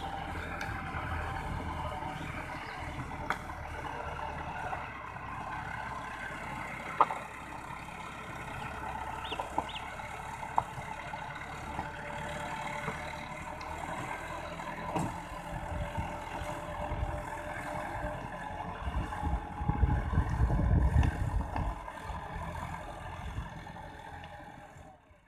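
Massey Ferguson 385 tractor's four-cylinder diesel engine running steadily under load while it pulls a rotavator through flooded mud. There are a few sharp clicks, and a louder low rumble for a few seconds near the end.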